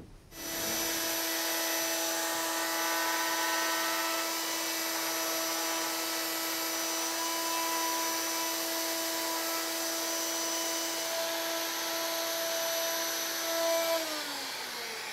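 Plunge router running steadily at high speed while it is passed over the underside of a maple slab, taking off about an eighth of an inch to flatten the spots where the table legs will mount. About fourteen seconds in it is switched off and winds down, its pitch falling.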